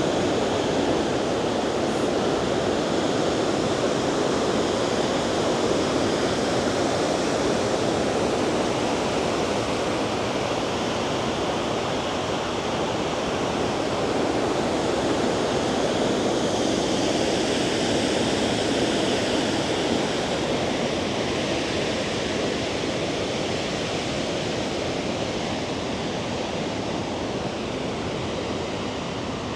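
Kakabeka Falls, a large waterfall, rushing steadily: an even, continuous noise of falling water with no breaks.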